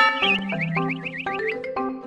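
Background music with repeating mallet-like notes. It opens with a loud hit, then a high warbling tone wavers up and down about five times a second for over a second.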